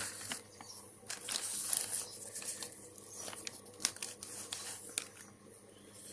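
Packaging being handled: irregular crinkling and rustling with scattered sharp clicks and taps.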